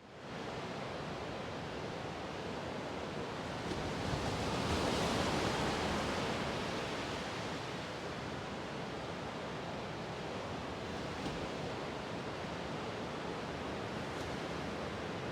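Steady rush of sea waves, swelling to its loudest about five seconds in and easing back.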